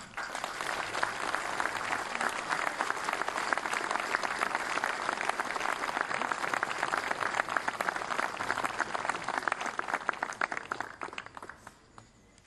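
Crowd applauding, a dense, steady clapping that thins out and dies away near the end.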